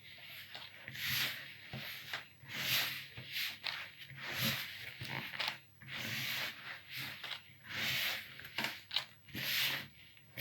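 Hands kneading a soft margarine cookie dough: a soft squishing press repeated about every one and a half to two seconds, six or so times.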